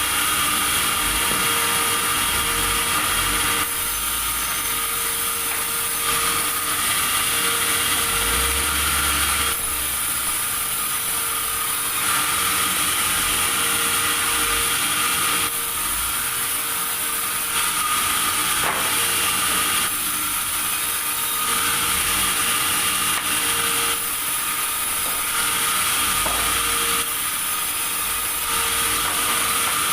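Sawmill saw running steadily, with its sound swelling and easing every few seconds as it cuts through timber in repeated passes.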